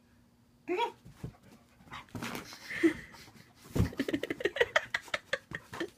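A dog vocalising during rough play with a person: a few short calls, then a quick run of about six short calls a second through the second half.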